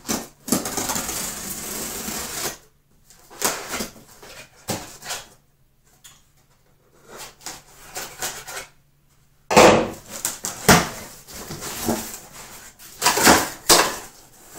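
A shipping box being opened and its contents handled: a steady noise about two seconds long near the start, then scattered rustling, clattering and knocks of packaging and items.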